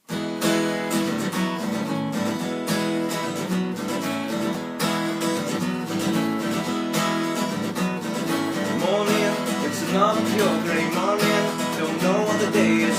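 Acoustic guitar strummed fast in a steady, driving rhythm of down and up strokes, on open-string chords: E major, B sus4 and A major.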